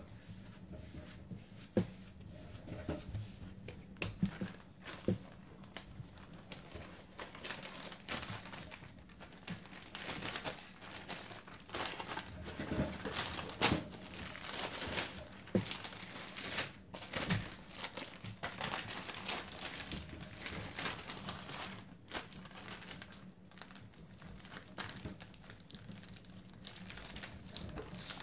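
Clear plastic zip-top bag crinkling and rustling as a ball of croissant dough is worked into it and pressed flat by hand. A few soft knocks in the first five seconds as the dough is rounded on the counter; the crinkling is densest about halfway through.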